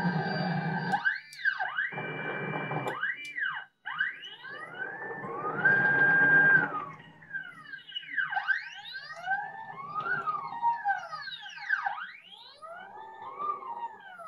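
Stepper motors of a CNC3040 router whining through a homing run, in a series of pitch sweeps that rise and fall as each axis move speeds up and slows down. About five seconds in, one longer move holds a steady pitch for a second or so before ramping down.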